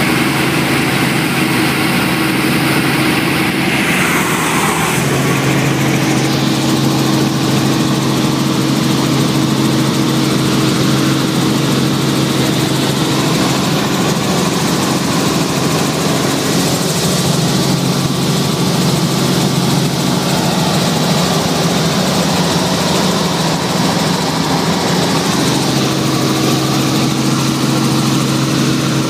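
Light helicopter's engine and rotor running steadily in flight, heard from inside the cabin: a constant loud drone of low tones over a rushing hiss.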